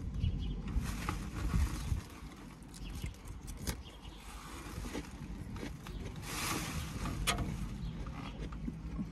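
Close-up eating of a salad: chewing and crunching with scattered clicks of a plastic fork, over the low hum of a car's idling engine. The hum is louder for the first two seconds.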